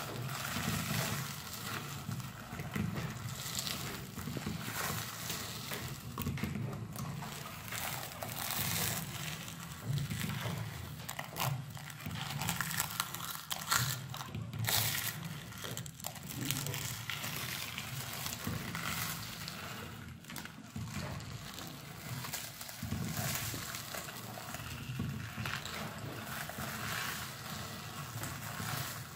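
Manual meat grinder crushing a dry, crumbly food: continuous irregular crunching and crackling as the auger forces it through the cutting plate, over a low steady grinding noise.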